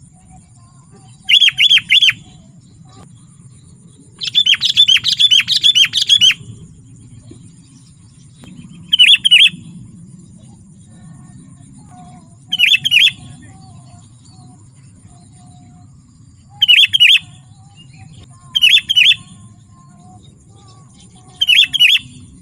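Sooty-headed bulbul calling in short bursts of quick chattering notes, about seven bursts a few seconds apart, one of them longer at about four to six seconds in.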